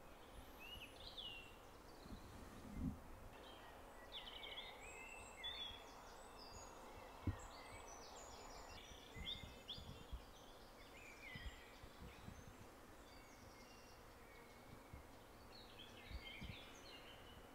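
Faint birdsong: several small birds chirping and trilling on and off, with a few soft low thumps.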